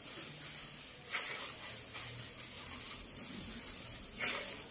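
Plastic-gloved hands squeezing and kneading cold cooked rice mixed with sugar and flour in a bowl: a soft rustle and squish of the plastic and rice, with two louder crinkles, about a second in and near the end.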